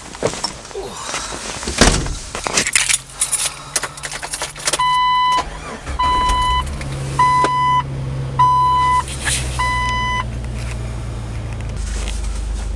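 Getting into a car: keys jangling and knocks from handling the door and seat. Then a car's warning chime beeps five times at an even pace, about one beep a second. A low, steady engine hum starts about six seconds in and carries on under and after the chime.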